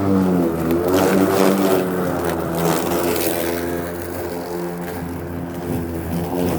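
Battery-powered electric lawn mower running and cutting grass, its motor hum wavering up and down in pitch.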